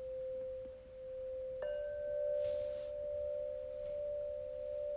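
Singing bowl tones ringing steadily with a slow, pulsing waver. About a second and a half in, a fresh strike adds a slightly higher tone that rings on over the first.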